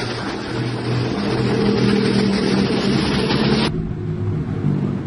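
Diesel truck engine and road traffic noise as a self-loader truck carrying an excavator drives past. About three and a half seconds in, the sound cuts abruptly to a steadier, lower heavy diesel engine running, with much less hiss.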